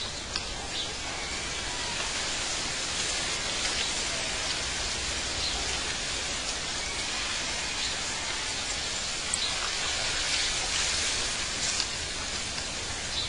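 Steady hissing noise, like rain or rushing water, with a few faint short high ticks or chirps scattered through it.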